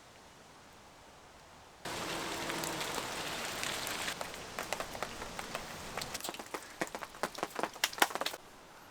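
Rain falling, a steady hiss with sharp drops striking a surface, the drops louder and more frequent toward the end. It starts suddenly about two seconds in and cuts off suddenly near the end.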